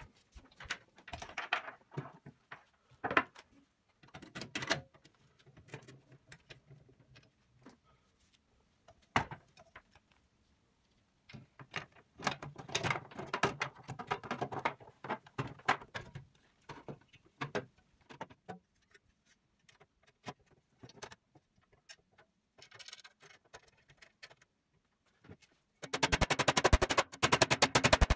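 Stainless sheet-metal parts of an electric barbecue grill being handled and fitted together: scattered clicks, knocks and rattles of metal, with a fast run of clicks lasting about two seconds near the end.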